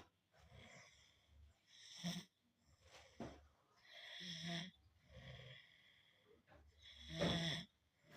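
Someone asleep and snoring: irregular snores and breaths every second or two, the loudest near the end.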